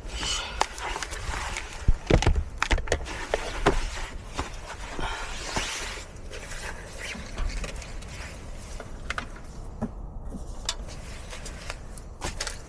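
Camping gear being handled by hand: rustling with a run of sharp knocks and clicks, busiest in the first half, then only a few scattered ticks.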